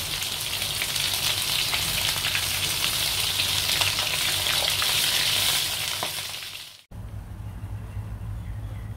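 Rice-flour-coated barramundi steaks sizzling and crackling in hot oil. The sizzle fades and cuts off about seven seconds in, leaving a low steady hum.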